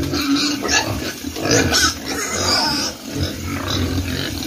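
A pen of young fattener pigs calling all at once, low grunts mixed with higher squeals: hungry pigs clamouring for their feed.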